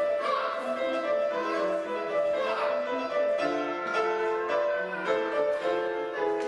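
Grand piano playing a lively accompaniment of short, distinct notes, with a brief swooping sound that slides up and down in pitch about two and a half seconds in.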